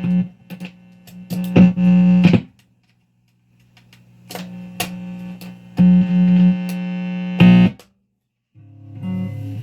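Electric guitar played through a Fuzz Face fuzz pedal running on a nearly dead battery: notes and chords in short bursts that cut off abruptly, with brief silent gaps between them.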